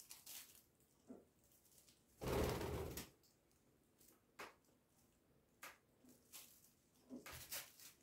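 Budgerigars moving over a plastic bag of greens and a bunch of dill: a loud rustling flutter lasting under a second about two seconds in, then scattered short crinkles and clicks.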